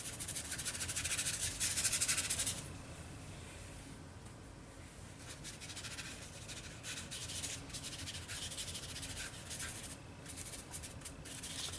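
Brush dry-brushing thick opaque white paint onto watercolour paper: a dry, scratchy rubbing in repeated strokes, strongest for the first two or three seconds, fading, then picking up again in lighter strokes about halfway through.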